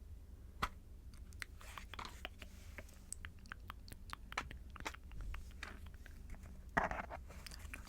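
Earrings handled close to the microphone: irregular small clicks and taps, with a louder click a little over half a second in and a short rattling cluster near the end.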